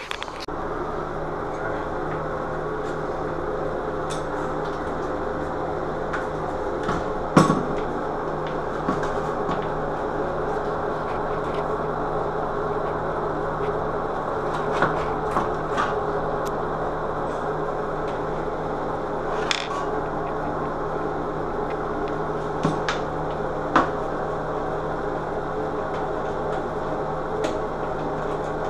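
A steady hum, with scattered sharp clicks and knocks as a metal bathroom vanity light bar is handled and mounted to the wall; the loudest knock comes about seven seconds in.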